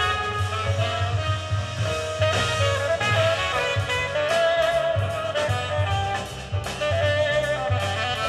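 Jazz with a tenor saxophone leading over a rhythm section with a pulsing bass line. It is played back from vinyl through a 300B single-ended valve amplifier and Altec 604E coaxial loudspeakers.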